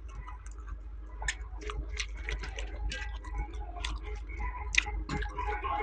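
Close-miked eating: irregular wet clicks and smacks of chewing a mouthful of rice and chicken fry, over a steady low hum.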